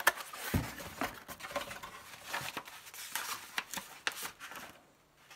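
Floppy disks and paper inserts from a software box being handled: a string of small clicks, taps and rustles, with a dull knock about half a second in.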